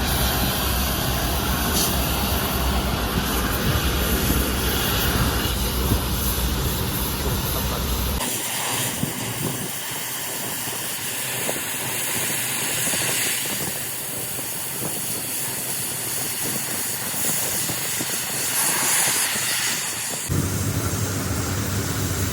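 Steady rushing hiss that changes abruptly about eight seconds in, losing its low rumble, and regains it near the end.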